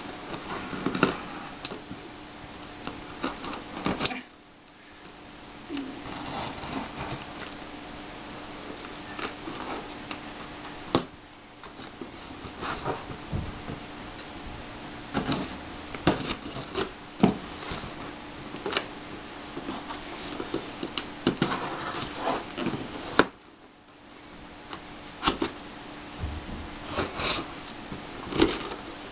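Stanley knife slicing through packing tape and cardboard on a box top, with irregular scratches and sharp clicks as the blade and hands work along the seams.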